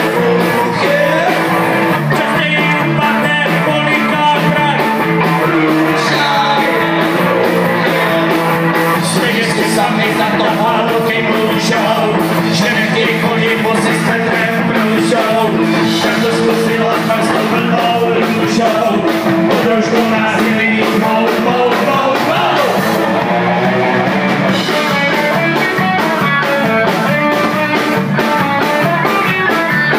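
Live rock band playing: electric guitars and a drum kit with cymbals keeping a steady beat, under two men singing into microphones.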